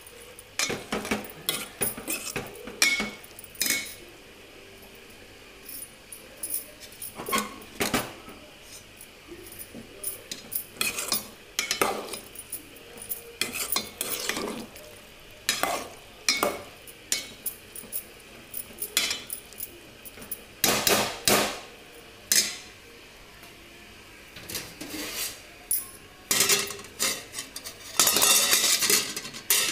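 Steel ladle stirring in an aluminium cooking pot full of chopped vegetables and chana dal, with irregular clinks and scrapes against the metal. Near the end comes a loud clatter as a metal plate lid is set on the pot.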